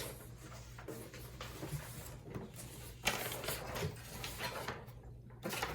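Packing paper and cardboard rustling and crinkling as parts are pulled out of a shipping box, with a few light knocks over a steady low hum.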